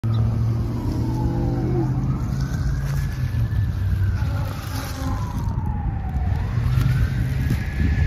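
Emergency siren in a slow wail, its pitch rising, holding and falling about every four to five seconds, with the steady low drone of a heavy engine underneath.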